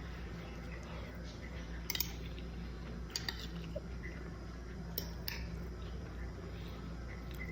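Cutlery clinking against a plate a handful of times while eating: short sharp clicks about two, three and five seconds in, over a steady low hum.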